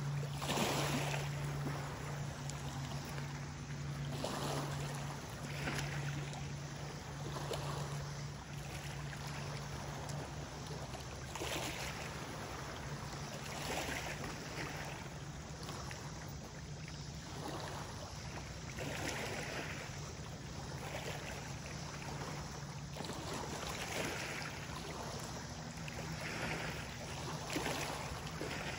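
Small river waves washing and lapping onto a rocky gravel shoreline, one wash every two to three seconds, over a steady low hum that fades away midway and returns near the end.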